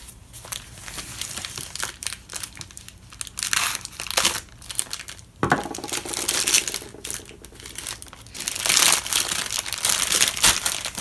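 Thick plastic MRE pouch bag crinkling and tearing as it is pulled open by hand, in irregular bursts, loudest in the second half, with one knock about halfway through.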